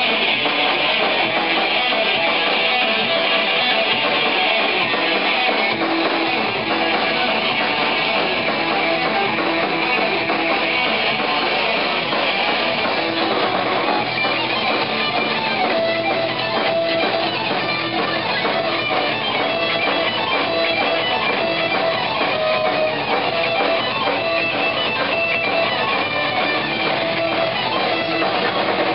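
Thrash metal band playing live: distorted electric guitars, bass guitar and drums in a loud, dense passage.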